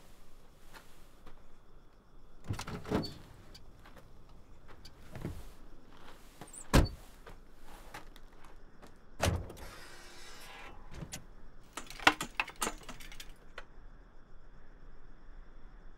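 The trunk of an old Ford car being opened and handled: a series of knocks and clicks. The loudest is a sharp thump about seven seconds in, followed by a rustling scrape around ten seconds and a quick run of clicks about twelve seconds in.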